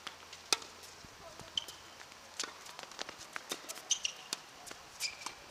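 Tennis rally on an outdoor hard court: ball pops off the rackets and bounces, with footsteps and a few short sneaker squeaks. The sharpest pop comes about half a second in.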